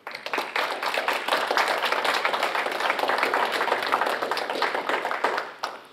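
Audience applauding: many hands clapping together, starting suddenly and dying away near the end.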